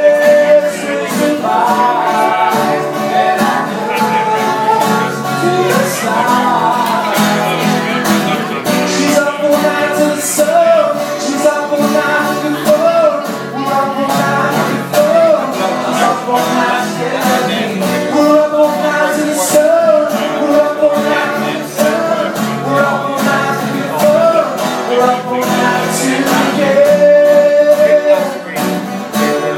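Two acoustic guitars strummed together with a man singing the melody, amplified through a small PA. The voice holds long notes and slides between pitches over a steady strummed rhythm.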